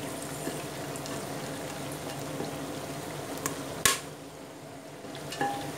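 Steady sizzle of chicken pieces frying in oil and whole spices heating in ghee in a pressure cooker, with one sharp click about four seconds in, after which the sizzle is briefly softer.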